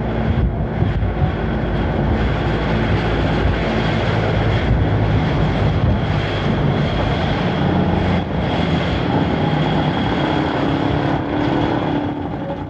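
A loud, steady engine drone with rumbling noise, its low pitch shifting a little, and a thin steady high tone above it.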